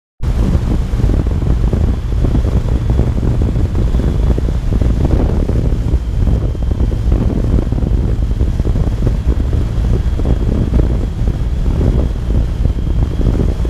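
Riding noise from a 1982 Yamaha XJ750 Seca motorcycle: wind rushing over the camera microphone with the air-cooled inline-four engine running underneath at a steady cruise, and a faint steady high whine. It cuts in abruptly just after the start.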